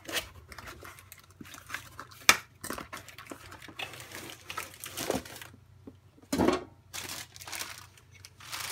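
Cardboard box being handled and opened, with packaging rustling and crinkling and scattered sharp knocks, the loudest about two seconds in, as the replacement battery is taken out.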